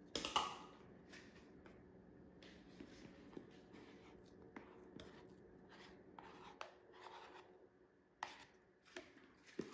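Faint, soft scraping of a metal spoon scooping whipped topping out of a plastic tub and dropping it into a plastic bowl of pudding, with a brief knock just at the start and a few light clicks near the end.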